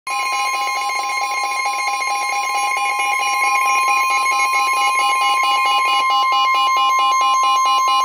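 Midland NOAA weather radios alerting for a severe thunderstorm warning. The steady 1050 Hz NOAA Weather Radio warning alarm tone sounds over the radios' own fast, repeating electronic beeping.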